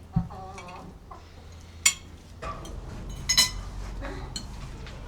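Tableware clinking: a sharp ringing clink about two seconds in and a quick pair of clinks past the middle, with a soft thump and a short pitched call right at the start.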